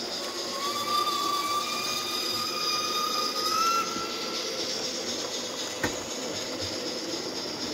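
HO-scale Trix 040D model steam locomotive running with its freight wagons: a steady hiss and rumble of the train on the track. A high, squealing tone lasts about three seconds, starting about half a second in and rising slightly at its end. There is one sharp click about six seconds in.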